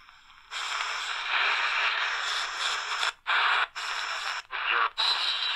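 Magnavox 89 pocket radio's speaker hissing with AM static while the dial is tuned between stations near 700 kHz. The hiss comes in about half a second in and breaks up into choppy bursts with short drop-outs in the second half.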